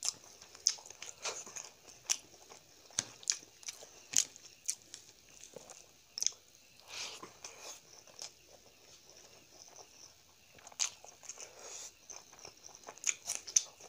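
Close-miked eating of rice and chicken curry by hand: wet chewing and lip smacking in irregular sharp clicks, with a few longer squelching stretches.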